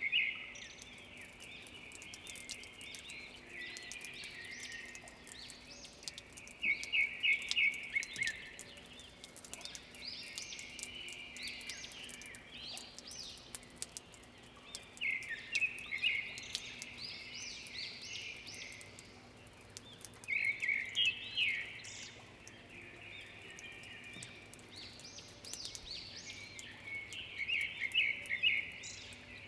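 Several birds singing after rain. One bird repeats a loud phrase of rapid repeated notes about every seven or eight seconds, with softer chirping from others between its phrases, over faint light ticking of drips.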